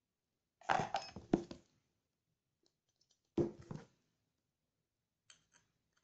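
Small metal spray-gun parts clinking and knocking against each other and the tabletop as they are handled and set down: a quick cluster of knocks about a second in, another about three and a half seconds in, then a few faint ticks near the end.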